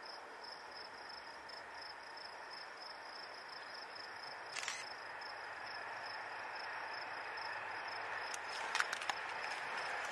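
Conrail diesel freight train with hopper cars approaching, its engine and wheel noise slowly growing louder, with a few sharp clicks about halfway through and again near the end. A high insect chirp pulses steadily throughout.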